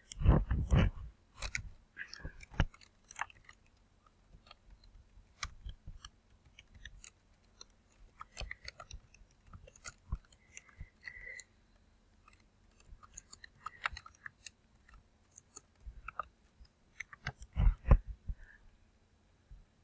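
Computer mouse clicks and keyboard keystrokes, irregular single taps with heavier knocks at the start and about two seconds before the end.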